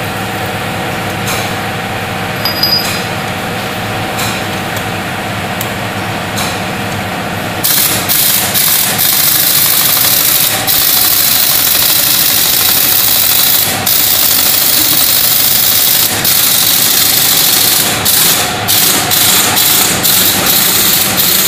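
Garage workshop machinery running steadily with a low hum. A loud hiss comes in about eight seconds in and keeps breaking off briefly.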